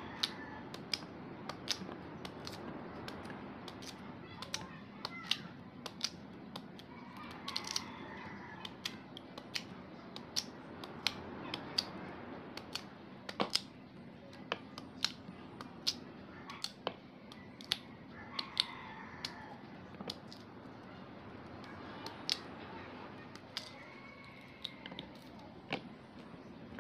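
Kitchen knife cutting peeled raw cassava into chunks, the pieces dropping into a plastic bowl: irregular sharp clicks, about one or two a second.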